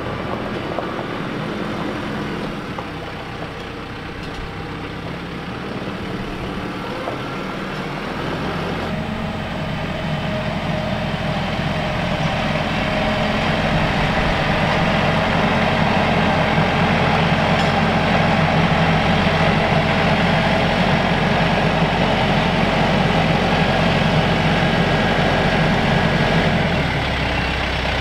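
TYM T574 tractor's diesel engine running steadily as it drives carrying a load of lumber on its loader forks. It grows louder partway through and eases off near the end.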